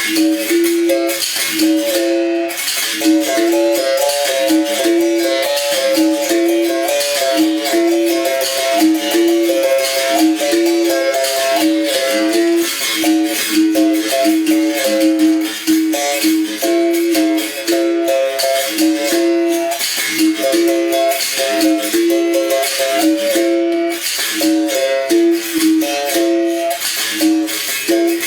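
Bamboo berimbau played in a steady rhythm: the struck wire alternates between a low note and higher notes. The caxixi basket rattle shakes along with the strokes.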